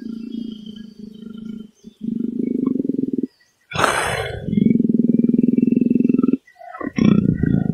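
Leopard growling: long, low, rasping growls lasting one to two seconds each, broken by short pauses, with a harsh snarl about four seconds in and another shortly before the end.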